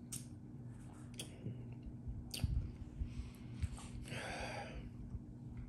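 Mouth sounds of someone tasting a sip of rye whiskey: a few small clicks and lip smacks, then a breathy exhale about four seconds in.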